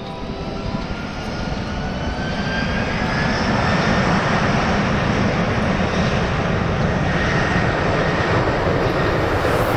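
Airbus A330 twin-engine jet airliner rolling for takeoff: the engines spool up with a rising whine and grow louder over the first few seconds, then hold steady at takeoff thrust.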